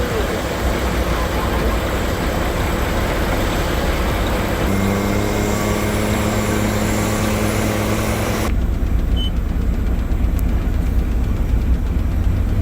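Heavy truck engine running with rumbling mechanical and road noise; a steady droning tone joins about five seconds in, and the sound changes abruptly about eight and a half seconds in.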